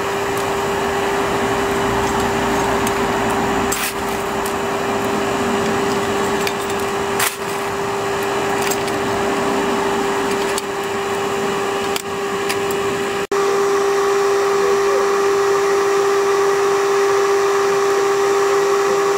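Small electric blower fan running steadily, a one-pitch whine over a rushing hiss, while a miniature steam locomotive is being fired up. A few sharp clicks and knocks of metal fittings being handled break in here and there.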